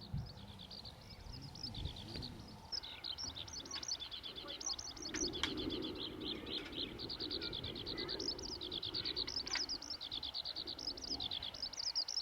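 Small birds singing in a rapid, continuous run of high chirps and trills, with a couple of sharp clicks.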